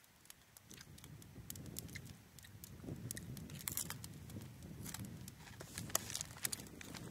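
Close-up eating sounds of someone chewing a burger, a soft low chewing noise with many sharp little clicks scattered through it, busiest in the second half.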